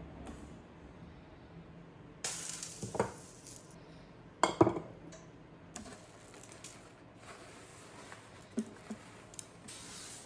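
Kitchenware being handled: dishes and utensils clinking and knocking in a few separate strokes, the loudest about four and a half seconds in, with a short hiss about two seconds in.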